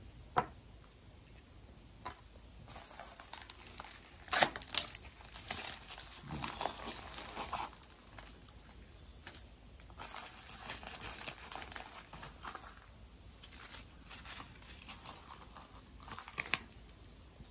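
Plastic packaging bags crinkling and rustling in bursts as they are opened and handled, with a few sharp crackles loudest about four to five seconds in.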